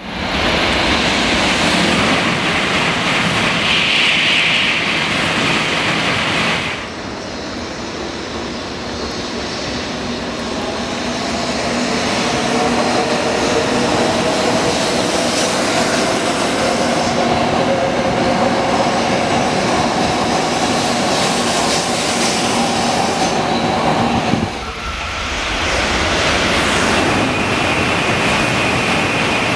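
Shinkansen bullet trains: first a loud, steady rush of a train running through. Then a quieter stretch in which a train's electric motors whine and slowly rise in pitch as it gathers speed. About twenty-four seconds in, a sudden cut leads to another loud rush of a train passing at speed, with a high whistling tone near the end.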